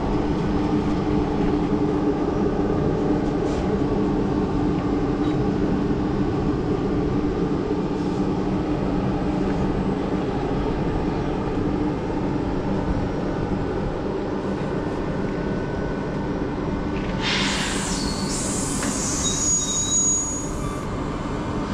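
SNCF BB 22200 electric locomotive moving slowly along the station track, with a steady hum throughout. About three-quarters of the way in, a high-pitched wheel squeal comes in for about four seconds and then stops.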